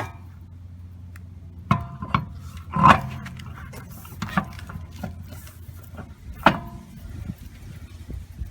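Metal tire-change tools and jack parts being handled, giving about five ringing metallic clanks, the loudest about three seconds in, over a steady low hum.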